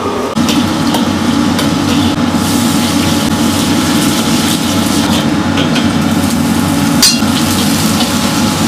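A cleaver chopping on a wooden board, then, about half a second in, a wok over a high gas flame: scallions and ginger sizzling in oil with the burner running steadily and a steel ladle scraping and clinking on the wok. About seven seconds in comes a loud clatter as chopped goose is tipped into the wok from a steel bowl.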